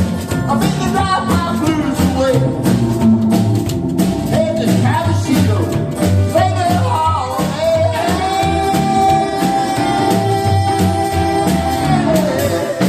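Live band playing an upbeat country and rock-and-roll number with drums, bass and guitar under a lead singer, who holds one long note for about four seconds in the second half.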